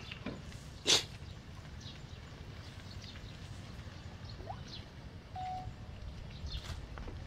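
Hand-handling noise as a thin snare wire is worked over dry straw: faint scattered ticks and rustles, with one sharp click about a second in, over a low steady rumble. A brief steady high note sounds a little past the middle.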